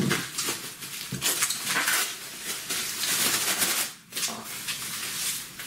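Bubble wrap crinkling and rustling as it is pulled off a wrapped bundle. The sound is strongest in the middle and drops out briefly about four seconds in.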